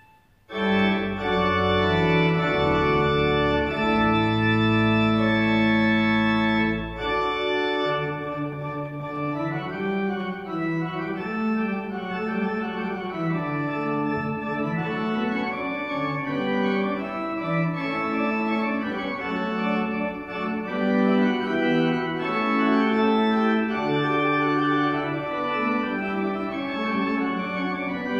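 Church pipe organ playing. After a brief silence at the very start, a new passage begins with full sustained chords over deep pedal notes. From about seven seconds in the bass drops out and lighter moving lines continue.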